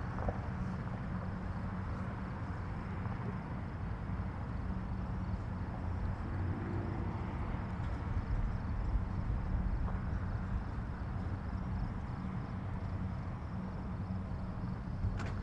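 Highway driving noise: a steady low rumble of tyres on the road and engine hum that neither rises nor falls. A single short tick comes near the end.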